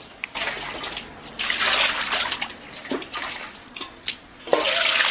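Green onions being washed by hand in cold water: water splashing and running in two bouts, about a second and a half in and again near the end, with a few small knocks between.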